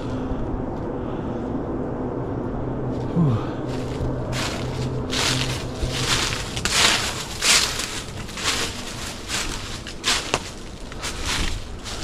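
Footsteps crunching through dry fallen leaves, starting about four seconds in and coming at an uneven walking pace of roughly one to two steps a second. Before the steps begin, a steady low hum is heard, with a brief falling pitch near three seconds.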